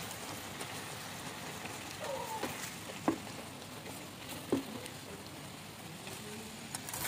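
Pineapple chunks bubbling and sizzling in syrup in a frying pan while being stirred with a spatula. A few sharp taps of the spatula against the pan stand out, about three and four and a half seconds in.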